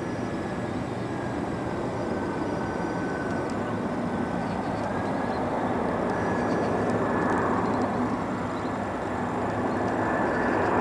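Airbus A319 jet engines on landing approach: a steady rush of noise with a faint high whine, growing slowly louder as the airliner comes closer.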